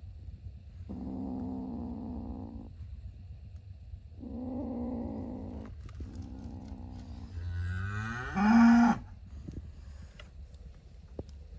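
An animal's drawn-out, low-pitched calls, four in a row, each lasting one and a half to two seconds. The last call, about eight seconds in, rises in pitch and is much louder than the others.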